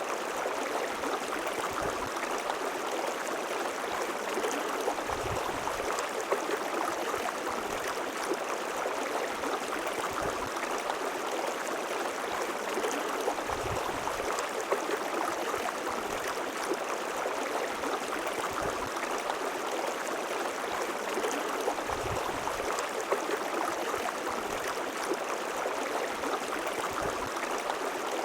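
River water flowing in a steady rushing babble, with faint low knocks of water now and then.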